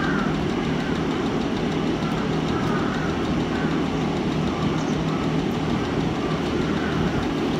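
A steady mechanical drone with a low hum, like an engine running without change.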